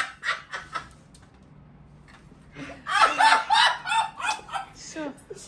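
Women laughing hard. A burst dies away within the first second, and a second round of laughter starts about two and a half seconds in.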